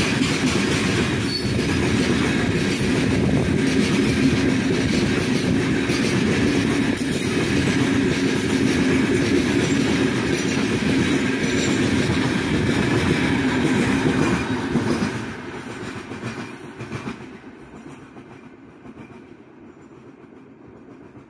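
Freight train wagons rolling past at close range, their wheels running steadily on the rails. About fifteen seconds in the last wagon goes by: the noise drops quickly, then fades as the train moves away.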